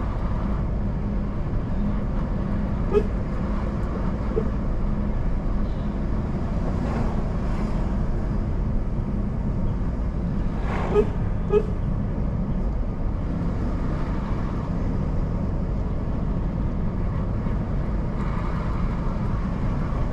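Car on the move, its engine and tyres making a steady low rumble, with brief horn toots: one about 3 seconds in, another a little after, and a quick double toot around the middle.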